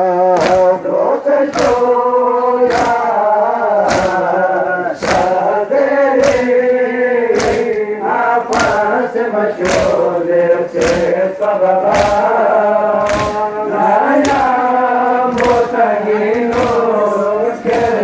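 Men chanting a nauha mourning lament together, with sharp slaps of matam chest-beating keeping a regular beat about once a second.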